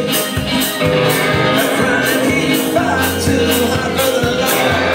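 Live country-punk band playing: upright bass, banjo and double-neck electric guitar under a man singing, with a steady beat.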